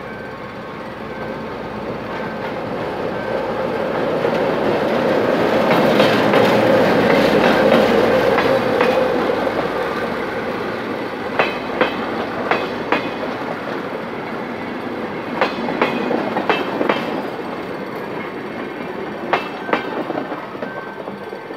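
General Motors GR-12 W diesel-electric locomotive, with its twelve-cylinder two-stroke engine, pulling a passenger train past: its engine and running noise builds to a loud pass about a third of the way in and then fades. Then the Materfer passenger coaches roll by, their wheels clacking sharply on the track in quick groups every few seconds.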